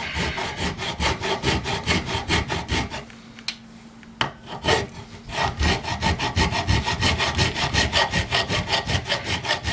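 Hand file rasping back and forth in quick, even strokes, filing a flat spot on a part clamped in a vise so it can be center-punched, drilled and tapped. The strokes pause briefly about three seconds in, then carry on.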